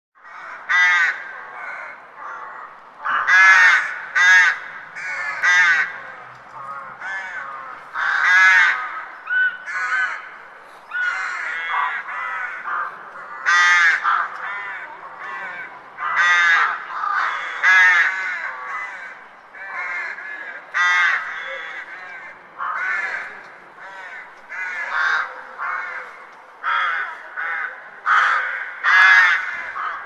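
Several crows cawing, harsh calls coming in quick runs of a few at a time every second or two.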